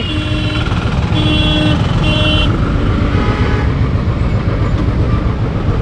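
A vehicle horn toots three times, each about half a second long, in the first two and a half seconds, over a steady low rumble of idling engines and road traffic.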